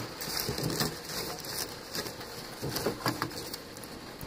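Irregular knocks and scrapes of split firewood sticks being pushed into the firebox of a wood-fired maple-sap evaporator, stoking up the fire.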